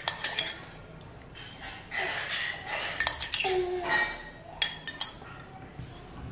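A spoon clinking and scraping against a ceramic mug in a string of short, sharp taps while a toddler is fed from it.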